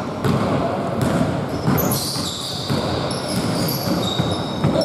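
Basketball play on a hardwood gym floor: the ball is dribbled and players' shoes run and thud, echoing in a large hall. High sneaker squeaks join in from about halfway through.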